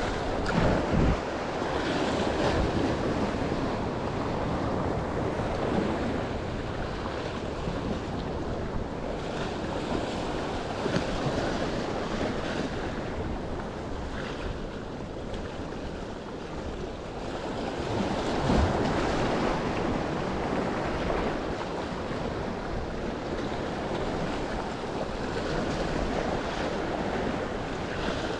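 Ocean waves breaking and washing over the rocks of a jetty, swelling louder now and then, with wind buffeting the microphone.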